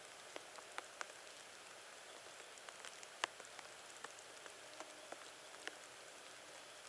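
Faint outdoor background hiss with scattered, irregular light ticks and pattering.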